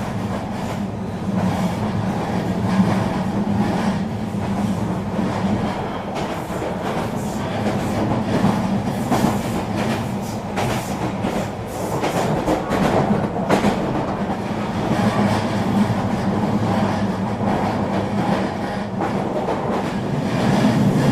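Regional train running along the track: a steady rolling rumble with scattered clicks as the wheels pass over rail joints, busier about halfway through.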